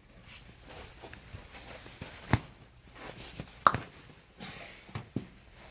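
Toe joints popping under a chiropractic adjustment: four sharp cracks. The two loudest come about two and a half and just under four seconds in, and two smaller ones follow close together near the end.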